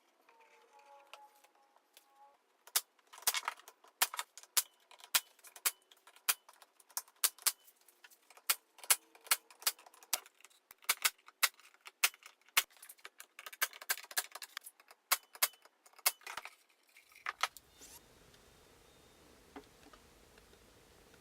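A run of sharp metallic clicks and clinks, about two a second, that stops about three-quarters of the way through, leaving only a faint steady hiss.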